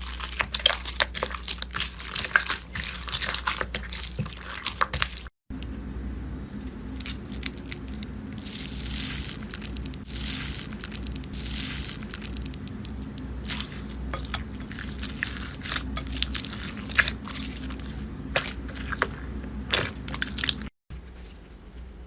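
Slime being squeezed and pressed by hand: dense crunchy crackling for the first five seconds, then after a cut softer wet squishing with occasional hissing swells, and another cut near the end to a quieter clip.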